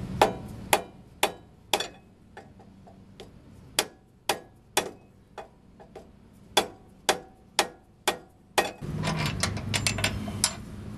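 Hammer blows on a brass drift bar driven against a truck's steering knuckle to knock the upper ball joint loose, sharp strikes at about two a second in runs, with softer taps between. Near the end the hammering stops and the parts rattle as the arm is worked free.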